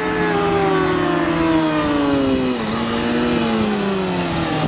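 600cc racing motorcycle engines at high revs, their pitch falling steadily as the bikes slow, with a sudden jump up in pitch about two and a half seconds in, as at a downshift, before falling again.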